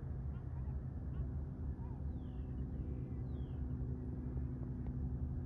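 Steady low rumble with a few faint, high, falling bird calls over it, the clearest two about two and three seconds in.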